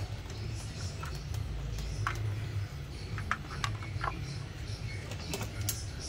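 Scattered light clicks and taps as an ignition coil and an inductive spark tester are handled in the engine bay, over a steady low hum.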